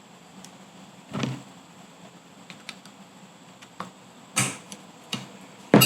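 Modified pliers working a steel snap ring out of the rear wheel-bearing bore in a UTV hub knuckle: short metallic clicks and scrapes as the ring is squeezed and levered. A loud sharp snap near the end comes as the ring springs free.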